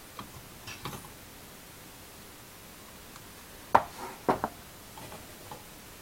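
Small hard parts being handled: a few light clicks, then two sharper metallic clinks a little under four seconds in.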